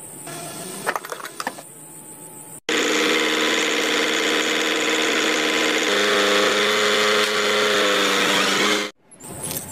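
A small motor running steadily with a whine. It starts abruptly about three seconds in, changes pitch slightly about halfway, and cuts off abruptly shortly before the end. Before it, there is a quieter stretch with a few light clicks.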